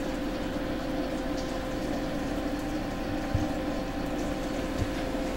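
Steady hum and hiss with a faint constant tone, broken by two soft low thumps about three and a half and five seconds in.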